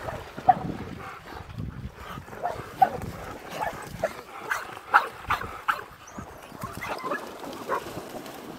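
Dogs giving short, excited barks and yips, a dozen or so scattered irregularly, over faint splashing of dogs swimming.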